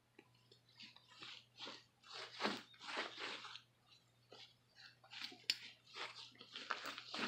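Hands squeezing and stretching fluffy glitter slime, making a run of small wet crackles and squishes, two or three a second.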